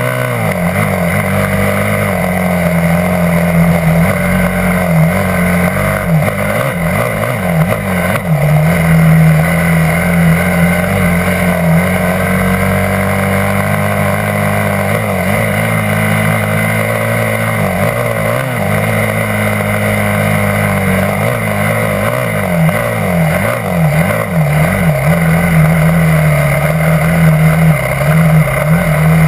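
Yamaha YZ250F dirt bike's 250 cc four-stroke single-cylinder engine running while riding, its revs dipping and climbing several times with the throttle.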